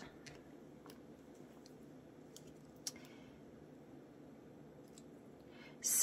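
Quiet room tone with a few faint small clicks, the sharpest nearly three seconds in, from hands handling paper collage cutouts and craft tools on a table.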